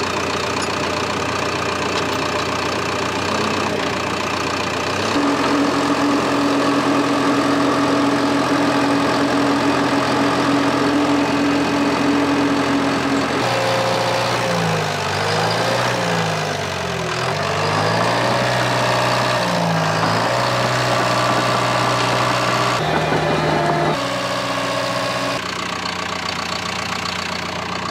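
John Deere 650K crawler dozer's diesel engine running steadily. Through a stretch in the middle its pitch rises and falls repeatedly as the blade lifts a chained excavator counterweight.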